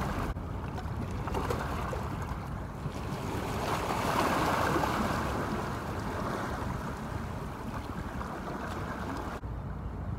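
Wind rumbling on the microphone over the wash of sea water along the shore, swelling a little about four seconds in.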